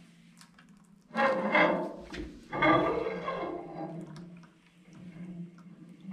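Steel axle shaft being drawn out of a Meritor axle hub on an LMTV truck, metal sliding in two loud pulls about one and two and a half seconds in, with gear oil draining and dripping from the hub.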